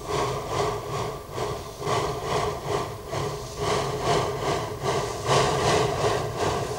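Narrow-gauge forest-railway steam locomotive working under steam towards the listener, its chimney exhaust beating about three times a second. The beats grow louder from about five seconds in as it comes closer.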